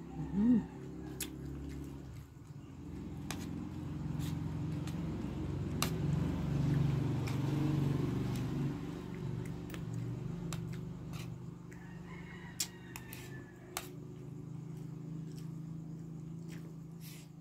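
Spoon and fork clicking now and then against a plate during a meal, over a steady low drone that swells around the middle. A short sound that rises and falls in pitch comes right at the start.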